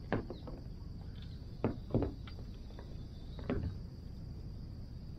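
Four sharp knocks and clicks of fishing gear being handled on a plastic sit-on-top kayak, each ringing briefly, over a steady low rumble.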